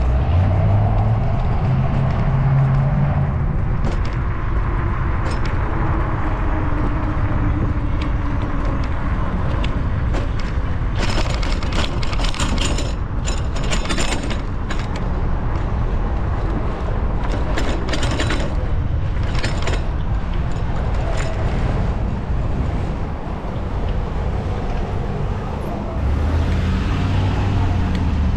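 Wind and road rumble on a camera mounted on a moving bicycle, with bursts of clattering and rattling from the bike and its wire front basket over rough pavement for several seconds in the middle.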